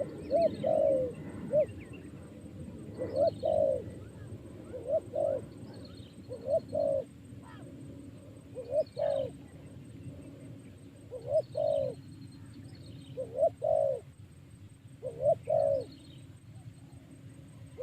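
A dove cooing: short two-note coos repeated about every two seconds, with small birds chirping faintly behind.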